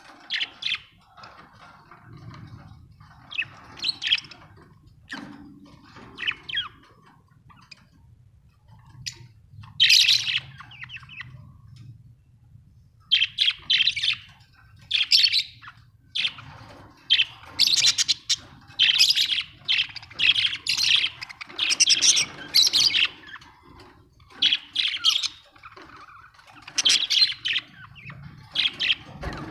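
Budgerigars chirping and chattering in short bursts of high calls, sparse at first and then almost nonstop for about ten seconds from the middle on.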